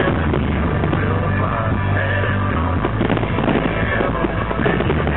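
Rock music playing with a steady bass line.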